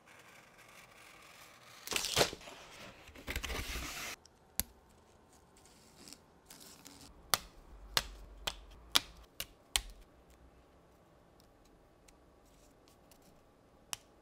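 A utility knife scratching as it slices through the sealed edge of a cardboard kit box for about two seconds. Then come sharp snaps as thin laser-cut plywood pieces are pressed out of their sheet, about six in two and a half seconds, and one more near the end.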